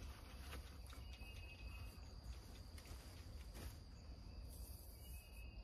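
Faint outdoor ambience: a steady high-pitched insect trill with a low rumble underneath, and a few soft rustles and clicks of a lightweight polyester hoodie and face mask being pulled over the head.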